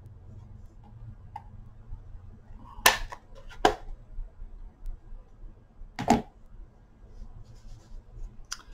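Craft supplies handled on a tabletop: a few short, sharp knocks, three louder ones about three, four and six seconds in, with smaller ticks between, over a low steady hum.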